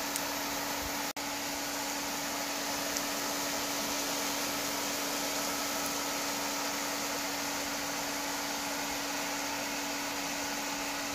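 Elm-seed pancakes frying in shallow oil in a pan: a steady sizzling hiss over a constant low hum, breaking off for an instant about a second in.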